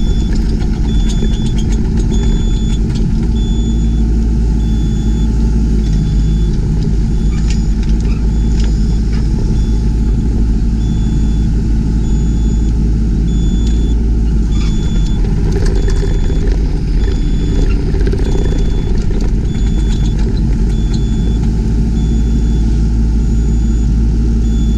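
Yanmar ViO20 mini excavator's diesel engine running steadily, with a high electronic beep repeating about once a second and a few short knocks in the middle stretch.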